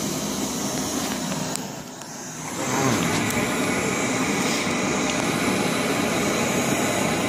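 Two isobutane-propane canister stoves, an MSR Pocket Rocket and an MSR Reactor, burning on high under pots of water: a steady rushing hiss, the open-flame Pocket Rocket the noisier of the two. The hiss dips for about a second near two seconds in, then returns.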